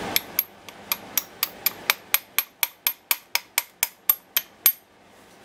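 A hammer tapping the bottom brake-pad retaining pin through a disc brake caliper: about twenty quick, even taps, some four a second, each with a short high ring. The tapping stops near the end.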